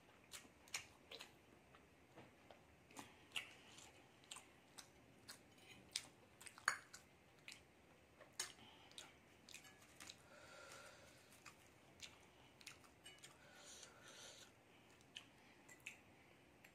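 A metal fork clicking and scraping against a glass plate as it twirls noodles, many short sharp clicks at an uneven pace, with soft chewing between.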